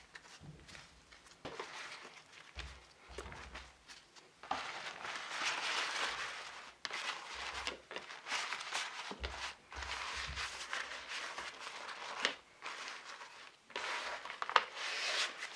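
Baking parchment rustling and crinkling as hands fold and wrap it around a large piece of marinated meat, in irregular spells with a few sharp crackles and dull thumps against a wooden board.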